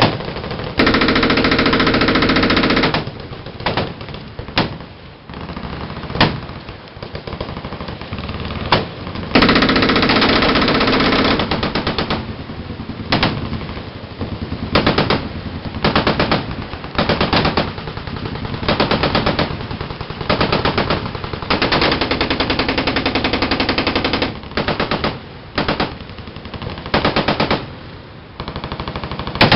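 Machine guns firing in fully automatic bursts: several long bursts of about two seconds, about a second in, at ten seconds and past twenty seconds, with many short bursts and single shots in between.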